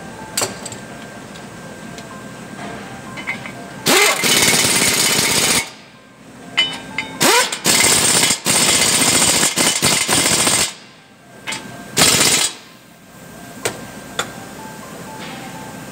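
Pneumatic air tool running in three bursts, roughly two seconds, three seconds and half a second long, the first two starting with a rising whine as it spins up, with a few light clicks of metal parts between them.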